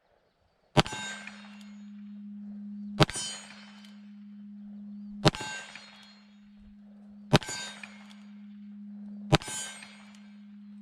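Ruger Blackhawk Bisley single-action revolver firing five .45 Colt rounds loaded with 200-grain lead bullets over Titegroup powder, one shot about every two seconds. Each shot is followed by a metallic ringing, and a steady low hum hangs on from the first shot onward.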